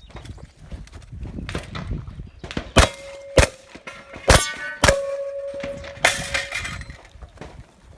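Four sharp shotgun shots fired in quick succession, each about half a second to a second apart, with a steel target ringing on after the hits and a further metallic clang near the end.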